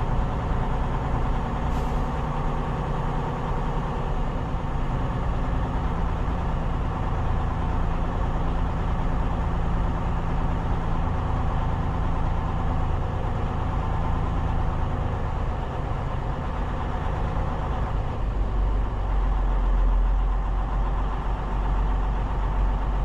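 Semi truck's diesel engine running steadily, heard from inside the cab, with a deeper low rumble building about three quarters of the way through.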